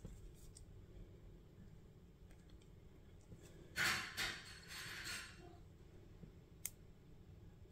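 Small handling noises of a fine screwdriver working the crimped terminals of a white plastic wire connector: a scratchy rustle lasting about a second and a half, a little before the middle, then a single sharp click near the end.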